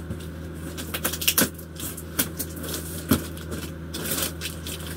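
Cardboard shipping box being worked apart by hand: irregular scrapes, creaks and a few sharp crackles, over a steady low hum.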